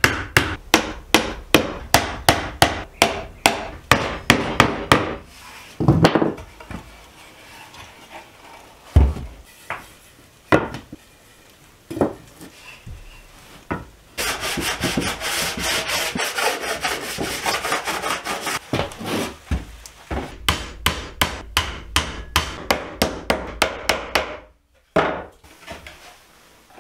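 Hammer driving nails into pine boards: a quick run of blows about three a second, a few single knocks, then about five seconds of steady rubbing on the wood, then another quick run of blows.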